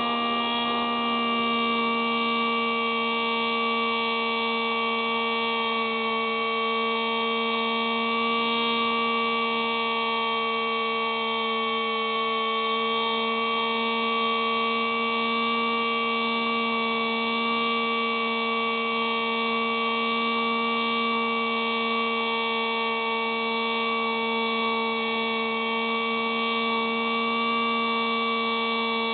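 Hubsan Spy Hawk RC plane's electric motor and propeller whining at a steady pitch, heard up close through the plane's onboard camera in flight.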